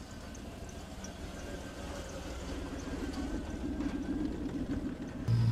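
Off-road trial vehicle engine idling, with a rough pulsing note that swells about halfway in. Near the end the sound cuts abruptly to a much louder, steady low drone.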